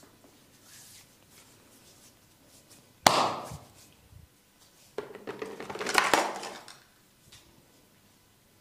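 Two sharp impacts: one about three seconds in, then a second and a half of scuffing and crackling with another sharp crack in the middle of it.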